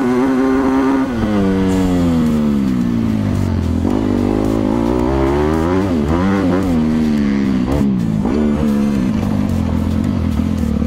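Motocross bike engine being ridden hard, its pitch climbing and falling again and again with throttle and gear changes, with a sharp drop about a second in. Wind noise on the helmet camera runs under it.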